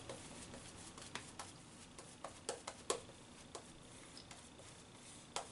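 A razor blade cutting lathered beard stubble, heard as faint, irregular short scratchy ticks with each stroke across the cheek.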